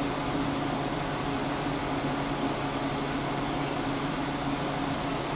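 Steady low hum over an even hiss of room noise, with no knocks or clicks.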